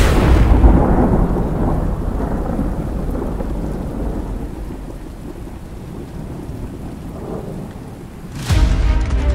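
A sharp thunderclap followed by a long rolling rumble that fades away over several seconds, with steady rain hiss beneath it.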